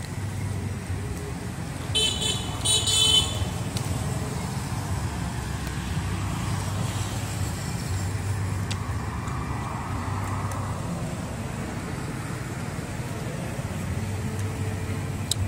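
Steady low rumble of road traffic, with a short, choppy high-pitched sound about two seconds in that lasts just over a second and is the loudest thing heard.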